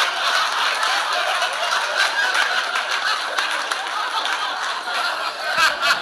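A man laughing and snickering on and on.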